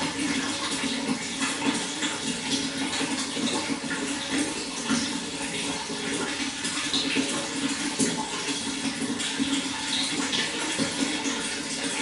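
Running water: a steady, continuous splashing flow.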